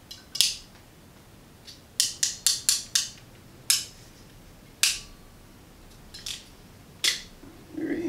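Hand wire crimpers clicking sharply as they are squeezed on a wire terminal. A quick run of four clicks comes about two seconds in, and single clicks follow a second or so apart.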